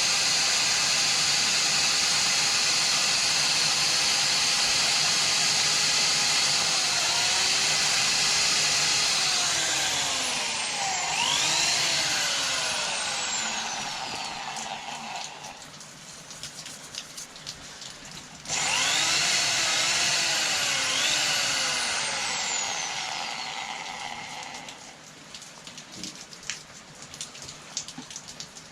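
A power tool's motor running at full speed, then winding down with falling pitch; it starts again suddenly about two-thirds of the way through and winds down a second time.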